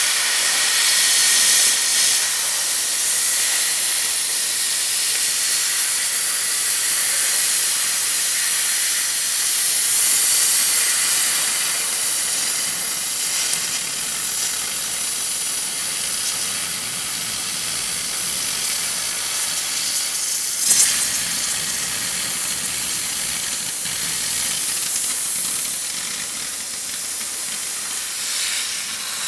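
Oxy-fuel cutting torch on a Victor DC2400 pattern-tracing machine hissing steadily as its oxygen jet cuts through 5/8-inch steel plate. A short pop about twenty-one seconds in.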